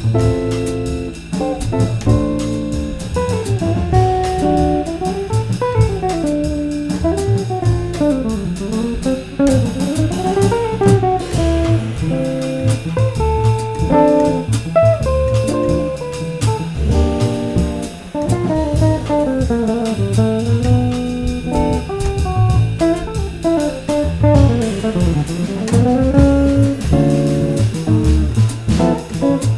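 Jazz trio of electric guitar, double bass and drum kit playing, the guitar carrying running melodic lines over the bass and drums.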